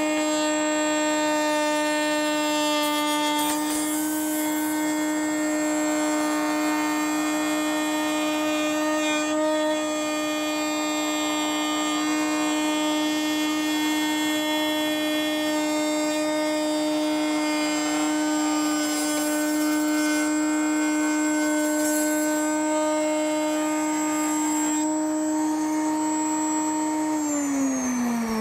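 Router spinning a bearing-guided flush-trim bit in a router table with a steady high whine, with brief rougher bursts as the curved wooden molding is fed into the cutter. Near the end the router is switched off and the whine falls in pitch as it winds down.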